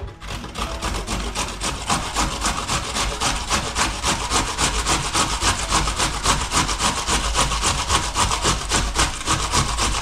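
A vegetable being grated by hand on a kitchen grater: quick, even rasping strokes, about four or five a second.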